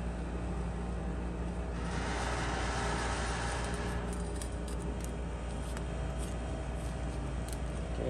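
A steady low hum, with a rough scraping rub from about two to four seconds in and a few faint clicks after it, as a steel ribbon-burner cage is pressed and worked down onto wet refractory in its mould.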